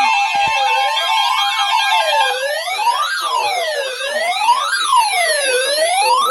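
Emergency alert tones: a steady alert tone stops about two seconds in, over a siren-like tone that sweeps up and down about once every second and a half.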